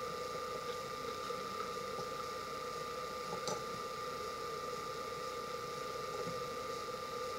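Steady room hum and hiss with a thin, constant high whine, and a faint click about three and a half seconds in.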